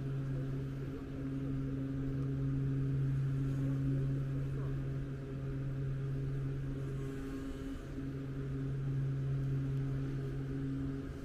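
Steady low machine hum on two constant tones, one deep and one an octave above it, over a low rumble.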